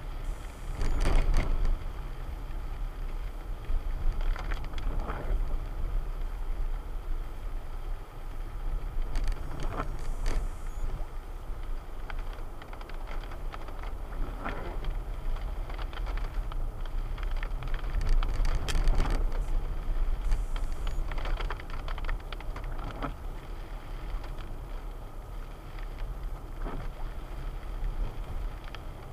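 A vehicle driving, with a steady low rumble and a jolt or clatter about every four to five seconds.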